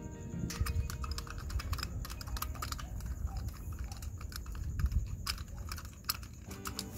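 Irregular small metal clicks and rattles of a chrome doorknob and its mounting screws being handled and turned by hand.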